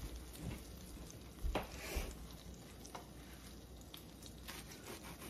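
A few light knocks and scrapes on a wooden cutting board as toasted grilled cheese sandwiches are handled and cut with a serrated knife, over a faint sizzle from a sandwich frying in the pan.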